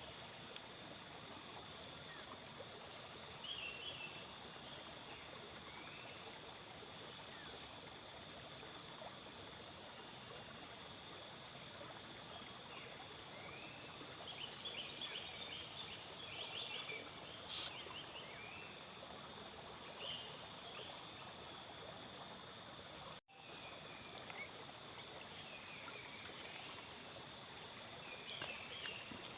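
Chorus of crickets and other insects: a steady high-pitched trill under rhythmic series of quick pulsed chirps, with short higher chirps scattered through. The sound cuts out for an instant about three quarters of the way through.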